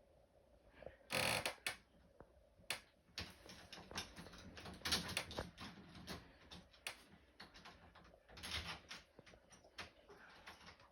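Irregular metallic clicks and rattles of a door lock being handled and worked at by hand during removal and installation, with a louder scraping rattle about a second in.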